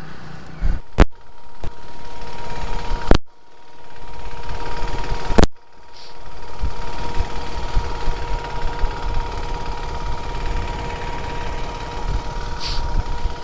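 KTM RC 390 single-cylinder motorcycle engine running at low speed over rough grassy ground, a low rumble with a steady whine. Four sharp clicks come in the first six seconds, and the sound cuts out briefly after two of them.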